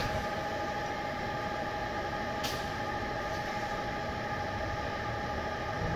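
A steady mechanical hum with several steady whining tones in it, unchanging throughout, and one faint click about two and a half seconds in.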